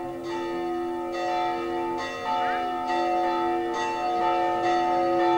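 Church bells ringing, a new stroke about once a second, each one ringing on under the next.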